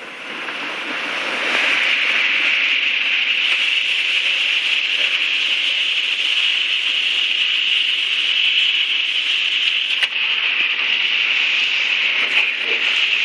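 Storm winds making a steady rushing roar, possibly with heavy rain, swelling about a second and a half in and then holding steady. There is a brief sharp click about ten seconds in.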